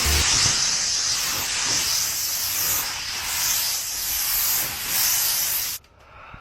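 Paint spray gun hissing steadily as compressed air and paint are sprayed, then cutting off abruptly near the end.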